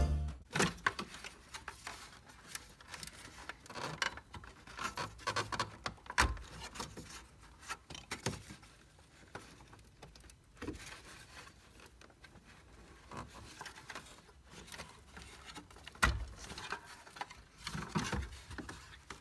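Plastic centre console trim of a Mazda MX-5 Miata being worked loose and pulled out by hand: scattered clicks, scrapes and rattles, with a few louder knocks.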